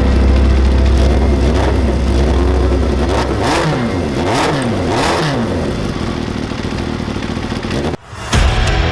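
Motorcycle engine revving over a deep steady rumble, with several quick blips whose pitch rises and falls between about three and five seconds in. The sound cuts off abruptly near the end.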